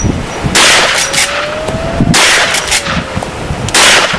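Three rifle shots from a Winchester 94 Trapper lever-action carbine in .44 Remington Magnum, about one and a half seconds apart. Each is a sharp crack with a short echo trailing off.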